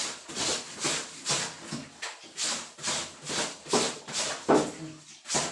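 A wet blanket being scrubbed by hand in a basin, the cloth rubbed against itself in rhythmic swishing strokes, about two to three a second.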